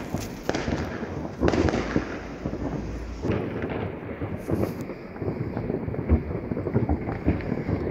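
Many fireworks going off across a town at once: a dense, unbroken crackle of firecrackers broken by heavy bangs every second or two.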